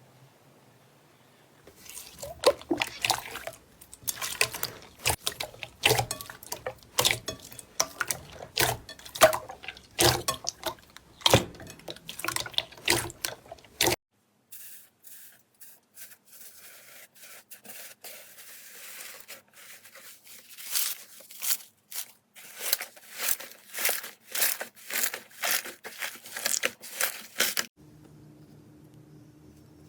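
Slime being squeezed and poked by hand, making a dense run of sharp wet pops and crackles. This breaks off suddenly, and then comes softer squishing with regular presses, about two a second.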